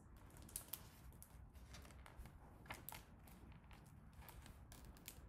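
Near silence with faint paper rustling and a few soft clicks as a page of a hardcover picture book is turned.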